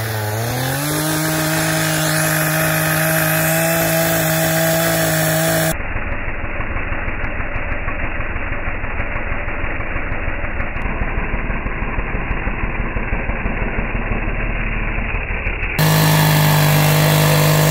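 Echo Timber Wolf two-stroke chainsaw revving up to full throttle in the first second and ripping lengthwise along a log for a freehand milling cut, its engine held at a steady high pitch. For most of the middle the sound turns duller and choppier, pulsing unevenly. The steady high-pitched run comes back near the end.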